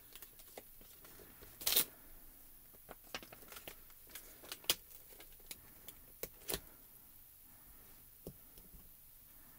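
Scattered light clicks and taps with a brief louder rustle about two seconds in: a clear stamp being peeled off its plastic carrier sheet and handled over a clear acrylic stamping block.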